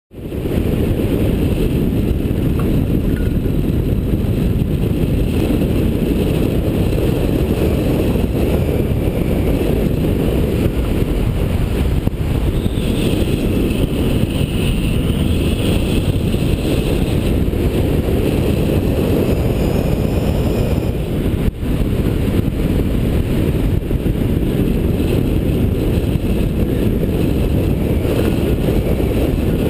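Wind rushing over the microphone of a camera mounted on a hang glider in fast flight, a steady deep buffeting. A faint wavering whistle rises over it about halfway through and fades a few seconds later.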